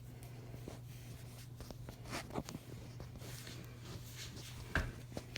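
Faint scraping and small clicks of hands working a shower handle onto its valve stem, with one sharper knock near the end, over a steady low hum.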